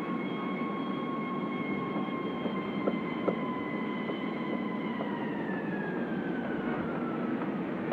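Steady city-street rumble with a high whine on top that slides lower in pitch over the second half.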